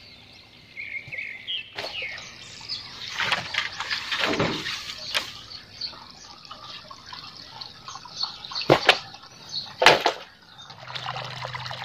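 Wooden poles and dry brush being cut and handled with a machete: rustling with several sharp knocks and one heavier thud, the loudest knocks near the end.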